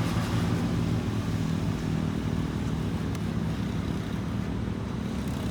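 Large bus's diesel engine running as it passes and moves off, a low steady hum that fades over a few seconds against background road traffic.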